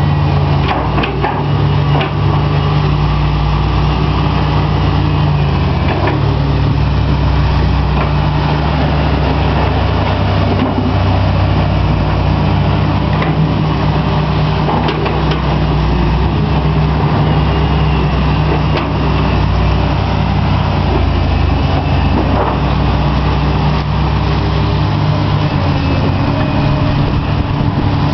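Several Komatsu PC300 hydraulic excavators with their diesel engines running steadily at a low, even hum, with a few short knocks now and then.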